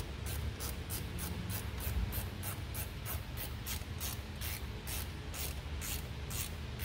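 Hand ratchet running a bolt in: a quick, even series of short raspy clicking strokes, about four a second.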